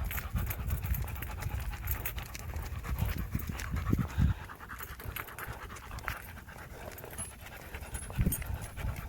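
Dog panting steadily in quick short breaths.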